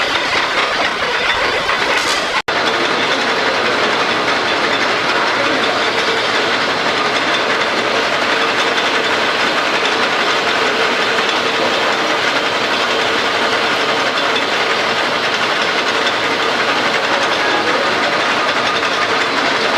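Metal lathe running through a turning job: a steady, loud machine rattle with a faint steady hum under it, broken by a momentary gap about two and a half seconds in.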